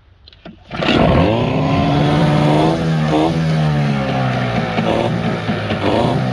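A 15 hp Evinrude two-stroke outboard, pull-start only, fires up under a second in, revs briefly with its pitch falling, and settles into steady running. It is being restarted after its idle mixture screw was turned a quarter turn to cure a refusal to idle.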